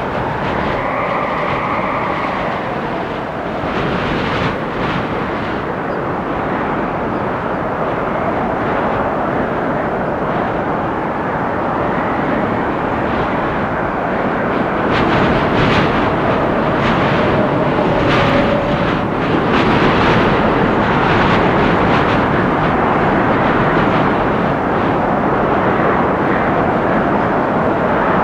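Storm wind blowing through forest trees: a steady rushing noise that gets louder about halfway through, with gusts and faint whistling tones now and then.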